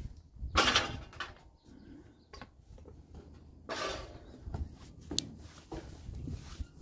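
Footsteps scraping and crunching on the debris-strewn floor of a gutted bus shell, with two louder scrapes about half a second and four seconds in and small knocks and clicks between them.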